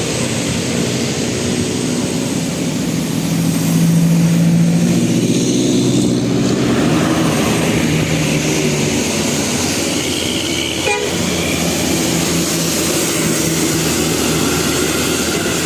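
Bus telolet horn sounding long held notes over steady engine and road noise.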